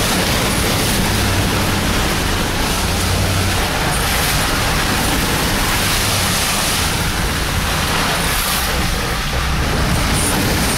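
Truck engine running under load, heard from inside the cab, as the truck backs through a mud hole, over a steady rushing hiss of tires churning mud and water.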